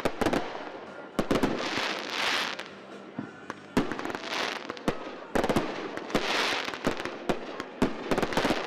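Fireworks display: repeated sharp bangs of shells bursting, with several stretches of crackling hiss lasting about a second each.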